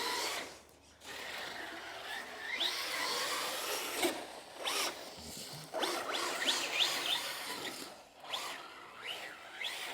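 Battery-powered RC car's electric motor whining up in pitch in short bursts as it is throttled, over a hiss of tyre and running noise. The sound drops out briefly twice, about half a second in and about eight seconds in.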